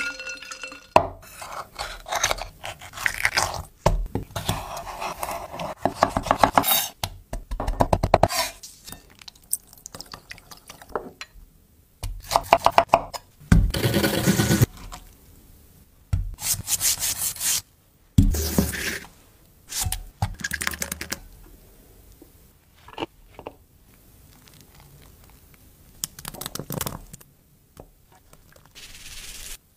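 A run of close-up food-preparation sounds: bursts of rapid scraping and rubbing strokes with short pauses between them, among them a fresh wasabi root being grated on a wooden board grater.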